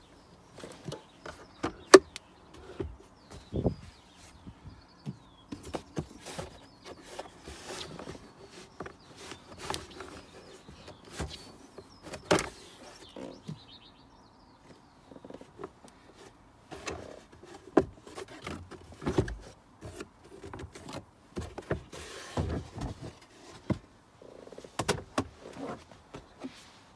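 Irregular plastic clicks, knocks and rustles of a Zafira Tourer's glovebox and footwell trim being handled, on the way to the cabin pollen filter. A sharp click about two seconds in is the loudest.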